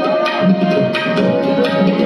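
Tabla playing a quick run of strokes in a Hindustani classical performance, over the steady drone of tanpuras and held harmonium notes.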